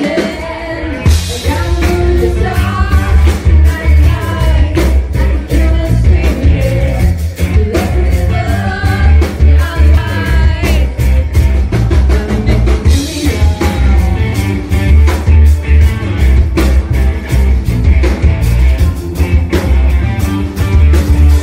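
Live rock band playing loud: electric guitar, drums and a woman singing over a heavy bass, with frequent drum hits.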